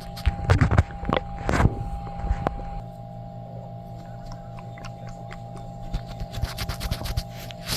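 A stomach gurgling and sloshing after milk and cheese have been eaten and drunk. Bubbly squelches cluster in the first two seconds and a run of quick small pops comes near the end, over a steady background hum.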